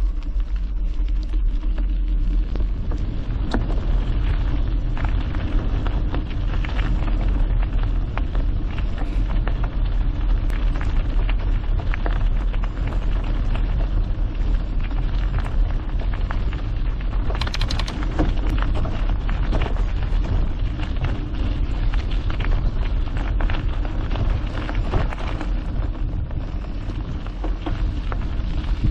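Mountain bike rolling along a gravel trail: the tyres crunch and crackle over loose stones over a steady low rumble, with one brief louder rush a little past halfway.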